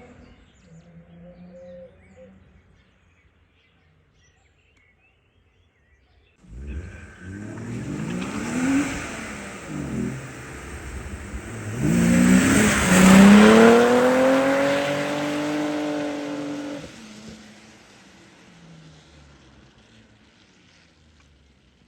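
BMW E36 2.8's straight-six engine revving hard. It starts suddenly after a near-silent stretch, its pitch rising and falling with the throttle, loudest about halfway with a rushing hiss of tyres on the road, then fading away near the end.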